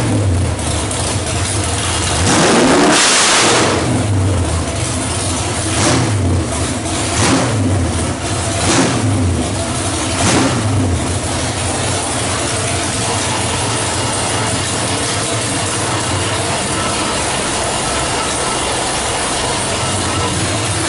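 408 cubic-inch small-block Chevrolet stroker V8 running on an engine dyno. It revs up once about three seconds in, then takes four short throttle blips worked by hand at the carburetor linkage, and settles to a steady idle for the second half.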